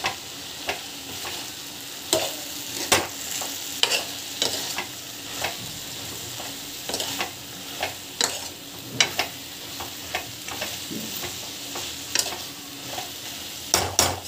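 Mint leaves, onion, tomato and chillies sizzling in oil in a pan while a spatula stirs them, with frequent irregular sharp taps and scrapes of the spatula against the pan. The ingredients for mint chutney are still being sautéed until the mint wilts down.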